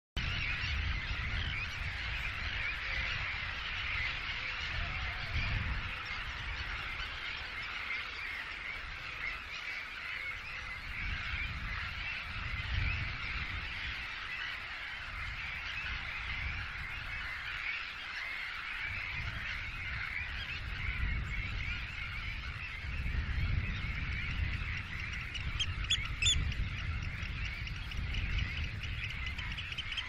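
A large flock of waterbirds calling without pause, many overlapping calls in a dense chatter, with one sharper high call near the end. Gusts of wind rumble on the microphone, coming and going.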